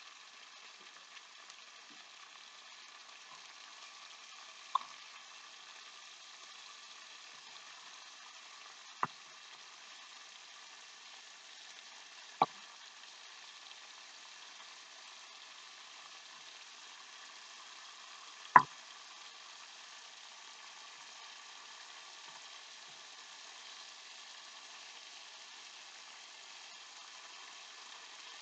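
Catfish pieces frying in a pan with a steady sizzle. A utensil knocks sharply against the pan four times, the loudest about two-thirds of the way through.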